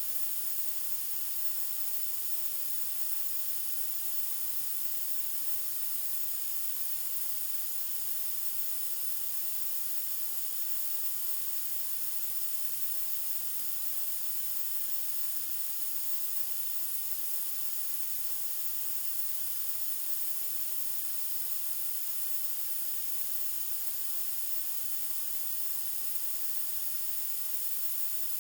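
White noise: a steady hiss, brightest in the high treble.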